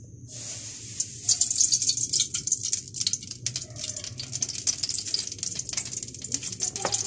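Cooking oil crackling and sizzling in a hot frying pan, a dense crackle that starts about half a second in, is loudest over the next couple of seconds, then settles to a steadier sizzle.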